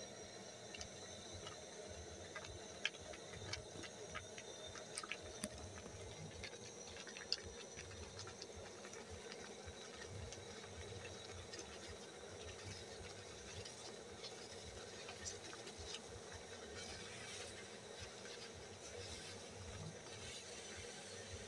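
Wooden spoon stirring a thick flour-and-water mash in an aluminium pot, knocking and scraping against the metal: many sharp clicks in the first several seconds, then softer scrapes, over a steady low hiss.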